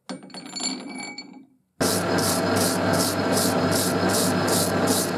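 A metal lathe running with a hand tool held against the vise's spinning steel spindle thread and worked back and forth, about three scraping strokes a second, starting about two seconds in; the thread is being cleaned of rust and grime. Before that, a shorter sound fades out.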